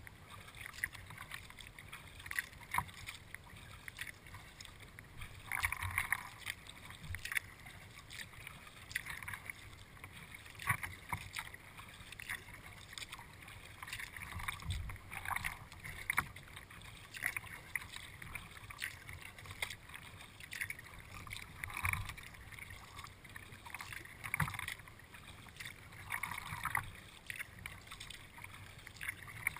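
Kayak paddling: the paddle blades splash into the water every few seconds, with short clicks and drips in between.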